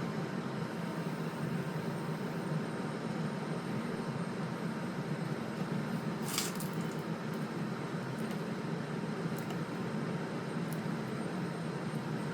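A steady low drone, with one short hiss about six seconds in and a couple of faint clicks later.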